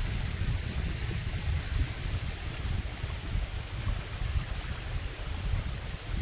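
Wind buffeting the microphone as an uneven low rumble, over a steady rushing hiss.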